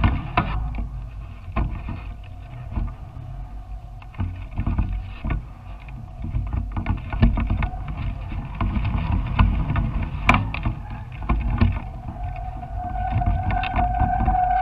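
Wind buffeting the microphone of a kite-lifted camera rig: an uneven low rumble with scattered small knocks and clicks. A thin steady whine fades out just after the start and returns near the end.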